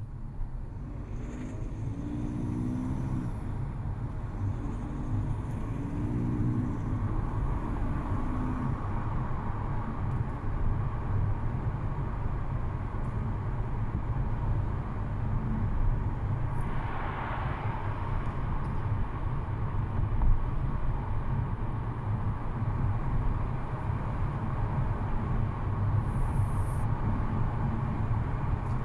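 Audi A3 1.6 TDI four-cylinder diesel engine running steadily at low revs while cold, with the rattle ("carraca") that shows up in that condition.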